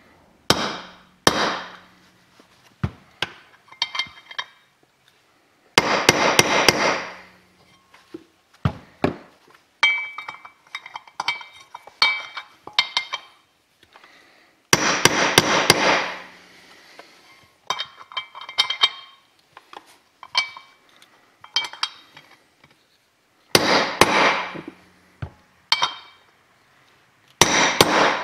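A hammer striking a socket used as a driver to press a ball bearing into an aluminium water pump housing. The blows come in short rapid flurries and single taps with pauses between, some with a metallic ring. The bearing is wrapped in thin shim stock to make up for a slightly oversized bore and give it an interference fit.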